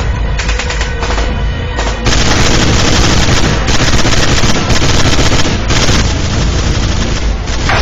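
Rapid automatic gunfire: separate shots at first, then from about two seconds in a dense, continuous barrage, with music underneath.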